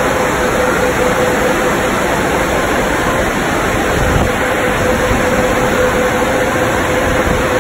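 Belanger SpinLite tunnel car wash running: a steady rush of water spray and machinery, with a steady mid-pitched hum underneath.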